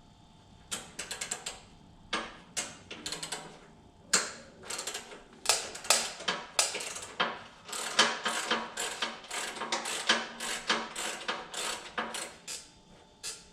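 Ratchet wrench clicking in quick runs with short pauses, loosening the bolts that hold a plate.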